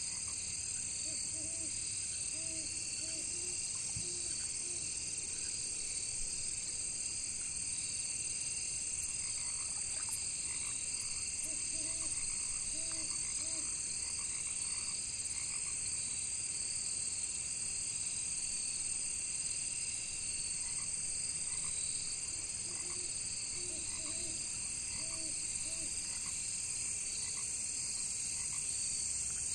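Frogs croaking in short runs of four or five calls, three times about eleven seconds apart, over a steady high-pitched chorus of crickets.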